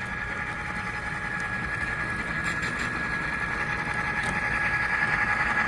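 HO scale model locomotives running on the layout's track: a steady mechanical hum with a high whine, growing louder as the trains come closer.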